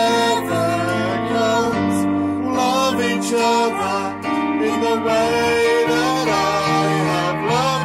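A song playing: a singing voice over held instrumental chords, in the style of a church worship song.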